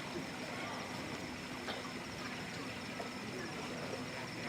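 Faint venue background between recited phrases: low indistinct voices and room noise, with a steady high-pitched whine and a faint hum.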